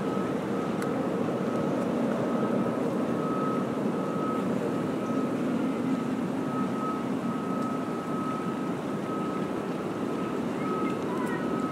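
A steady mechanical drone with a thin, constant high whine above it, holding level throughout.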